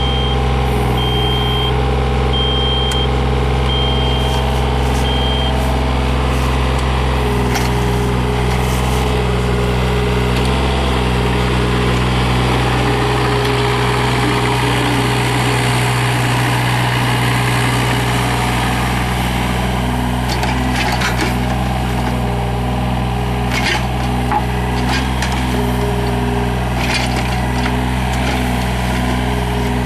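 Yanmar VIO35-3 mini excavator's three-cylinder diesel engine running steadily. For the first five seconds or so an alarm beeps about once a second. Later there are a few sharp clanks.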